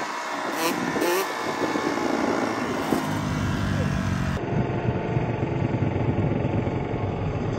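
Two-stroke dirt bike engine under throttle through a wheelie, its pitch rising and falling over the first few seconds and then holding a steadier drone.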